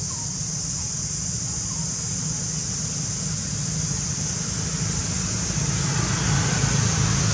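Steady outdoor background noise: a low rumble that swells toward the end, under a constant high hiss, with a few faint short chirps near the start.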